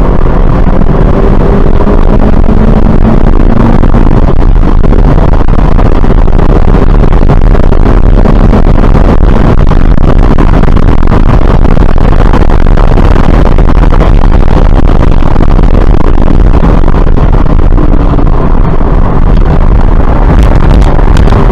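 2017 Subaru BRZ's 2.0-litre flat-four engine pulling hard as the car accelerates to nearly 90 mph, then easing off as it slows near the end. Heard from inside the cabin under very loud, near-clipping wind and road noise that covers the engine through the middle.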